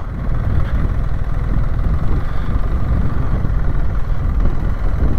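BMW R 1300 GS motorcycle's boxer-twin engine running at a steady pace on a hard-packed dirt trail, a dense, even low rumble mixed with riding noise.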